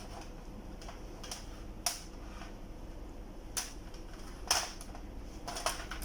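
About half a dozen light, sharp clicks and taps at irregular intervals. They come from test leads and a battery being touched against the contacts of an LED TV backlight strip while its LEDs are tested one by one.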